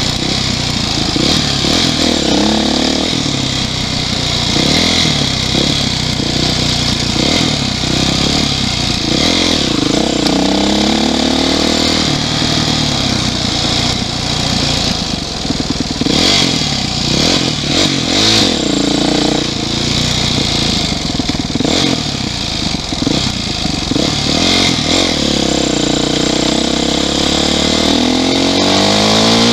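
Yamaha YZ450F single-cylinder four-stroke dirt-bike engine running under way, its revs repeatedly climbing and dropping back, with a steady rush of wind over the microphone.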